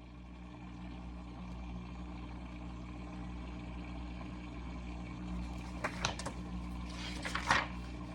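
Steady low electrical hum, with a few short paper rustles and clicks in the last couple of seconds as a page of the picture book is turned.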